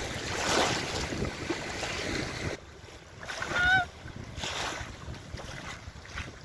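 Wind on the microphone and choppy lake water lapping in the shallows. After an abrupt drop in level, a single short pitched call about three and a half seconds in, the loudest sound in the stretch.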